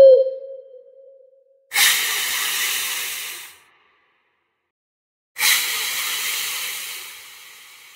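Two loud hisses, each about two seconds long, that start suddenly and fade out, with a silent gap of under two seconds between them. A high pitched squeal dies away at the very start.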